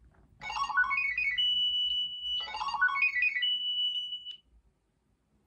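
Pachinko 'kyuin' jackpot (probability-change) sound effect played back twice: each time a quick run of electronic notes climbing upward, then a long held high tone.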